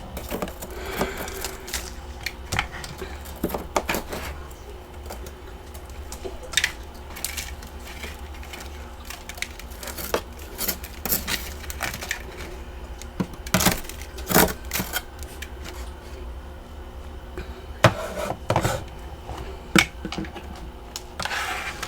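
Someone biting and chewing large chunks of freezer frost ice close to the microphone: irregular crisp crunches, a few much louder than the rest, over a steady low hum.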